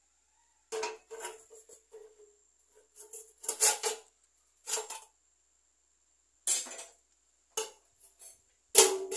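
Metal clanking and rattling as a steel strip and loose parts slide and knock inside the green steel tube of an old hand planter, ringing briefly with each knock. It comes in separate bursts, loudest about three and a half seconds in and again near the end.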